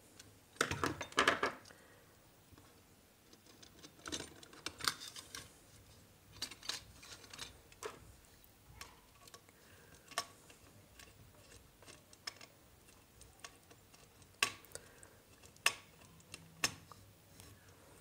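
Small screwdriver working the brass terminal screw of a kit-kat fuse on a plastic switchboard while a wire is fitted under it: scattered small clicks and scrapes, with short clusters of scraping about a second in and again around the middle, then single sharp clicks every second or two.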